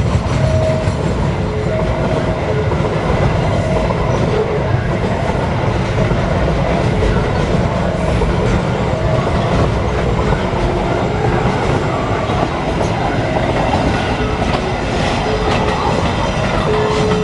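A train passing over a level crossing, its wheels clattering over the rail joints with a steady rumble. Over it, the crossing's warning alarm repeats an alternating two-note signal about once a second.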